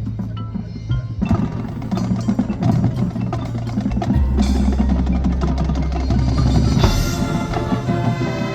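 Marching band playing, with front-ensemble mallet percussion and drums. The full band comes in about a second in, a low bass note is held through the middle, and the music builds louder toward a bright swell near the end.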